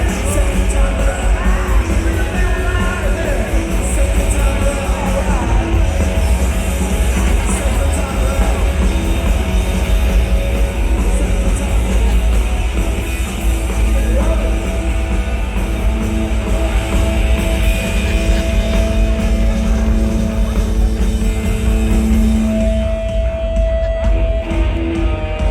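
Punk rock band playing live, heard loud from the crowd: distorted electric guitars, bass and drums with vocals.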